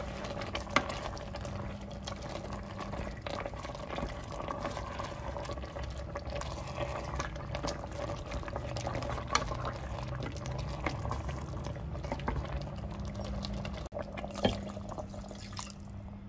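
Wooden spatula stirring tomato paste through a pot of simmering beef stew: wet stirring and sloshing of the broth, with frequent light knocks of the spatula against the pot.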